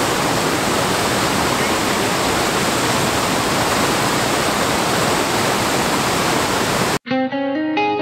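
Steady, loud rush of the Pistyll Rhaeadr waterfall and the river cascading over rocks close by. About seven seconds in it cuts off suddenly and music with plucked guitar notes takes over.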